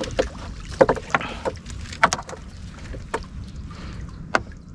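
Gill net being hauled into a small fishing boat: a run of sharp knocks and clicks, the loudest about two seconds in and another just before the end, over a steady low rumble.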